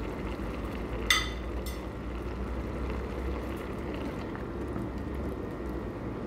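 Minced chicken, rice and green pepper simmering in broth in a pan, a steady bubbling hiss, stirred with a wooden spatula. A sharp ringing clink about a second in, and a fainter one just after.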